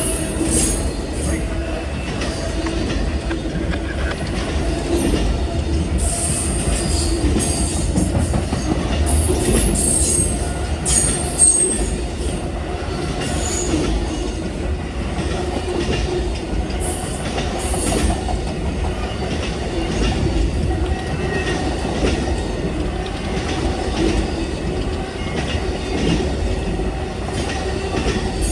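Amtrak Auto Train's cars rolling past: a steady rumble of wheels on rail, broken several times by brief high-pitched wheel squeals.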